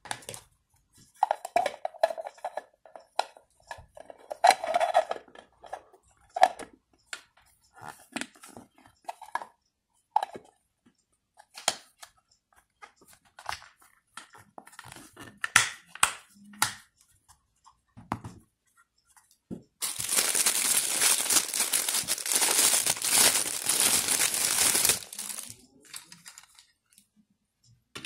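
Hard plastic parts and stainless-wire blade inserts of a vegetable slicer set clicking and clacking as they are handled and fitted together. About two-thirds of the way through come several seconds of continuous crinkling of plastic packaging, the loudest sound.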